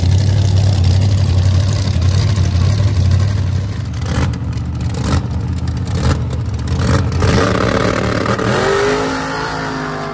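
A mud-racing vehicle's engine running loud under power, with a run of sharp cracks about halfway through, then fading away.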